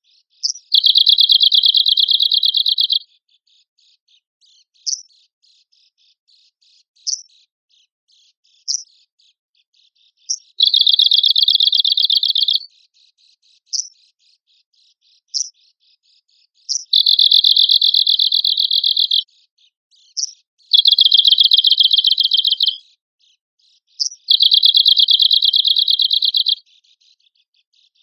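Arctic warbler (cikrak kutub) singing: five rapid, dry, high trills of about two seconds each, with single sharp call notes in the pauses between them.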